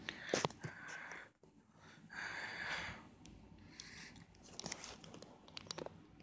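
Handling noise: scattered sharp clicks with two short bursts of rustling, about half a second in and again about two seconds in.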